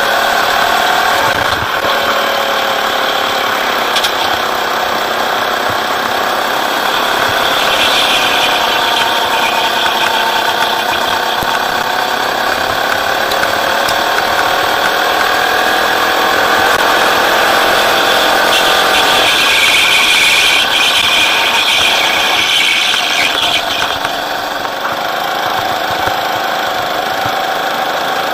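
Rental go-kart's petrol engine heard from the driver's seat, running through a lap, its pitch rising and falling as the kart speeds up and slows.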